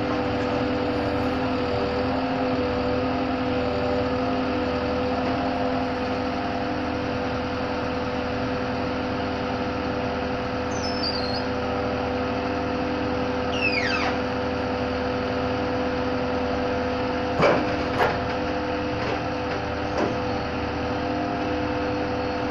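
Truck-mounted Palfinger loader crane's engine and hydraulic drive running steadily with a constant hum, while the brick grab works. A few sharp knocks come near the end, and a couple of brief high chirps are heard midway.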